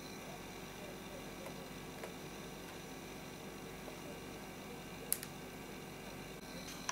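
Small snap-on antenna connectors being pressed onto a laptop's M.2 Wi-Fi card: a faint tick about two seconds in and one sharp click about five seconds in, over a low steady background hiss.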